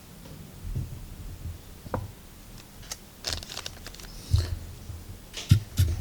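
Handling noise as firework cake boxes are moved about: scattered knocks and thumps with rustling. The sounds get busier about halfway through.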